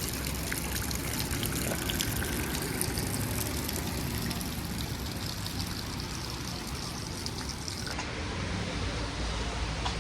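Steady rain with water trickling and running, dotted with many small drop ticks. About eight seconds in, the highest part of the hiss drops away.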